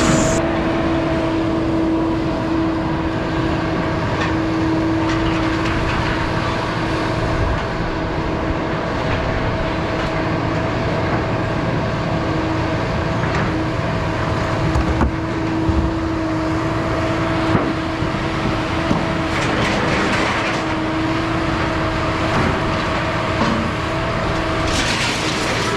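A vehicle running steadily, with constant road noise and a steady droning hum, and a few light knocks and rattles.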